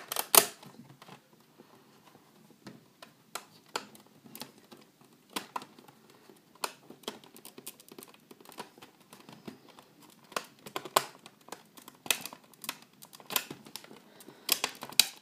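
A disc boxset's case and trays being handled: irregular clicks and taps with light rustling, the loudest about half a second in and a cluster near the end.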